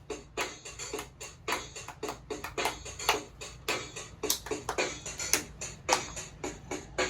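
Toy electronic keyboard playing its built-in electronic drum rhythm: a steady beat of short, sharp hits at about three a second.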